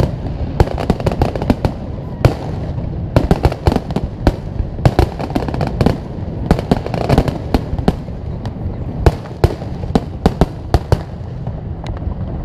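Fireworks display: a rapid, dense series of sharp bangs and crackles over a steady rumble, thinning out to a few scattered bangs near the end.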